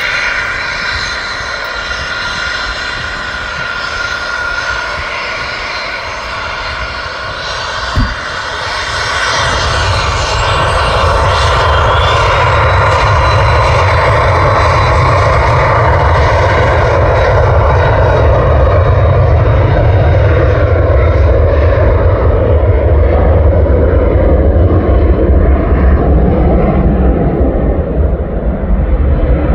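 Embraer Phenom 300E's twin Pratt & Whitney PW535E turbofans at takeoff: first a jet whine, then a single knock about eight seconds in. After that a loud, low jet roar builds and holds while the high whine slowly fades.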